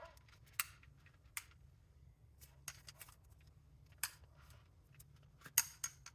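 Scattered light clicks and taps, about eight in all at uneven intervals, from small parts being handled over a faint steady low hum.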